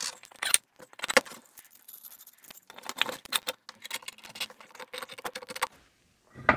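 Steel threaded rods clinking and scraping as they are pushed through the holes of two wooden boards, with washers and nuts clicking as they are fitted onto the rod ends to assemble a bolt clamp. It is a quick run of metallic taps and clinks with some faint ringing, and it stops about six seconds in.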